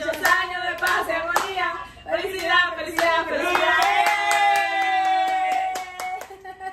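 Women singing a birthday song in Spanish, clapping their hands in time; the singing stretches out one long held note from about four seconds in, with the claps going on around it.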